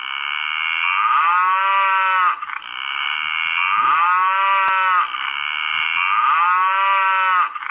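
Cow mooing: three long, drawn-out moos in a row, each about two and a half seconds, with the pitch dipping and rising within each call.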